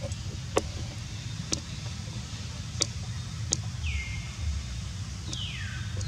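Outdoor forest ambience: a steady low rumble, a few sharp clicks, and twice a high whistled call that slides down in pitch and then holds.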